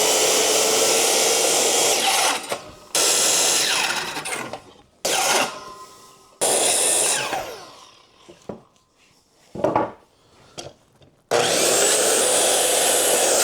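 Electric power saw cutting white oak in several runs of a few seconds, with the motor whining steadily under load. Between runs it winds down as the trigger is released, and there is a longer pause in the middle.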